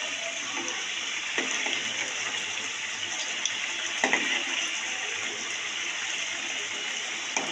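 Samosas deep-frying in hot oil: a steady sizzle of bubbling oil, with two light knocks of a slotted steel spoon against the pan, one about a second and a half in and one about four seconds in.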